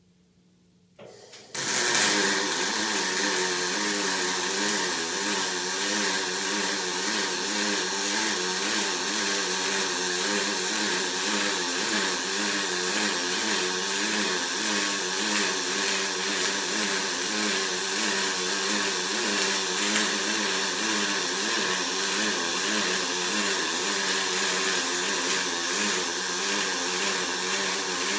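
Pulse MIG arc from a Miller XMT 304 welding aluminum, laying a corner-to-corner weld on a fuel tank. The arc strikes about a second and a half in and runs steadily as a loud buzzing hiss.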